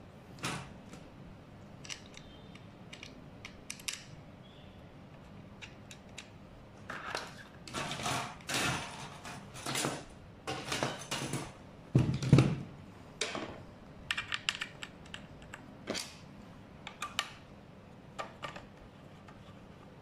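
Clicks, knocks and scraping as the deck plate and frame parts of a Kukirin G3 electric scooter are handled and pressed into place. The sounds come in scattered clicks, with a busy stretch of scraping and rattling in the middle and a louder knock about twelve seconds in.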